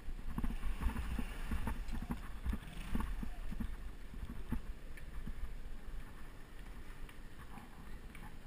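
Wind noise on a bicycle-mounted GoPro camera while riding, with irregular small knocks and rattles from the bike on the road surface.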